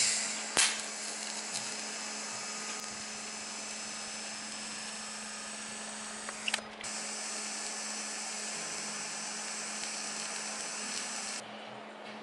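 TIG welding a large steel nut onto a steel plate: a steady arc hiss laced with a high-pitched whine from a faulty shielding-gas pressure regulator. It starts with a loud burst, breaks off briefly with a couple of clicks about six and a half seconds in, then carries on and stops shortly before the end.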